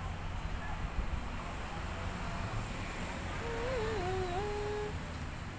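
A puppy whimpering once, a thin whine of about a second and a half that wavers in pitch and then holds steady, over a low steady rumble.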